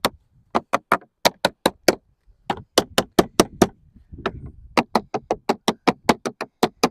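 A lead dresser beating lead sheet into shape: quick, even taps about five a second, in runs with short pauses between them.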